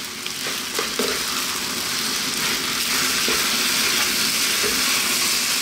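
Fusilli in tomato cream sauce sizzling steadily in a hot frying pan as a slotted spoon stirs and tosses it, with a few soft knocks of the spoon in the pan.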